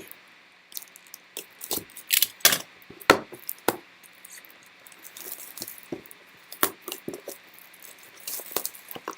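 Sealed trading-card box being cut open with a dull blade and its plastic wrap pulled off: irregular crackles, clicks and scrapes of wrap and cardboard.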